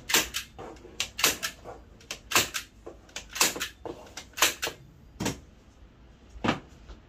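Handheld framer's nailer firing points into the back of a wooden picture frame to hold the backing board in place: a run of sharp clicks, some in quick pairs, with a longer pause before the last one.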